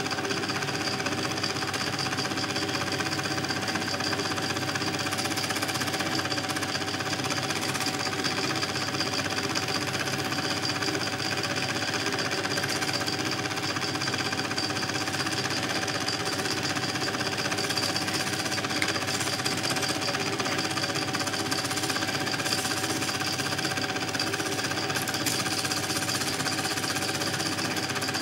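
Film projector running: a steady, fast mechanical clatter with a constant whine, unchanging and without breaks.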